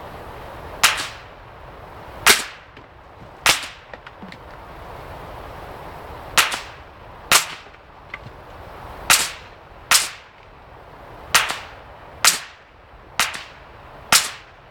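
Eleven sharp rifle shots from a .22 Marlin rifle firing Stinger hyper-velocity .22 LR rounds, one about every one to two seconds, several in quick pairs, each crack with a short echoing tail.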